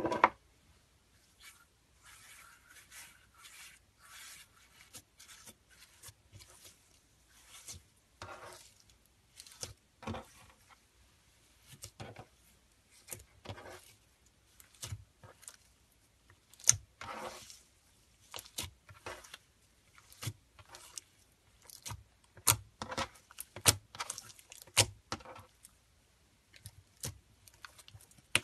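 Clear glue slime with black glitter being stretched, folded and kneaded by hand, making irregular sticky clicks and crackles that come thicker in the second half. A louder sudden click at the very start.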